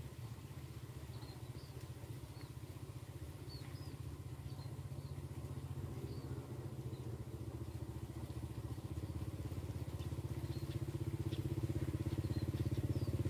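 A motorcycle engine running with a steady, even pulse, growing gradually louder as it comes closer.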